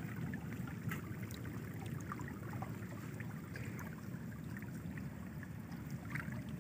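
Muddy rainwater floodwater running fast over the ground and stones: a steady low rush of water.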